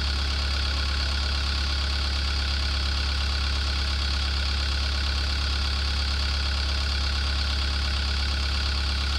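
Caterpillar compact track loader's diesel engine idling steadily close by, a constant low hum that does not change.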